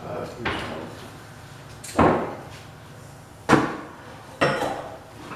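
Someone rummaging through shop storage: four sharp bangs and knocks, roughly a second and a half apart, each ringing out briefly in the room.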